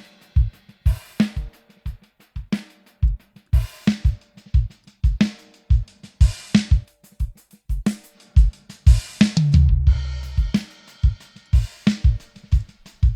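Sampled child's drum kit (bass drum, snare, tom and cymbal) playing a looped beat through a chorus, delay and reverb plugin. About nine and a half seconds in, one low boom rings on for about a second.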